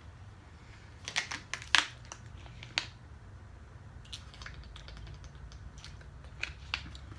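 Thin plastic water bottle crackling as it is handled and drunk from: a cluster of sharp crinkles about a second in, a single click a second later, then fainter scattered clicks near the end.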